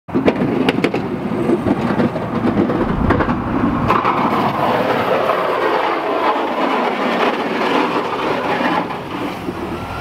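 Ford F-250 pickup pushing snow with its front plow: the blade scraping and rattling over the pavement while the truck's engine runs, with a few sharp knocks in the first four seconds.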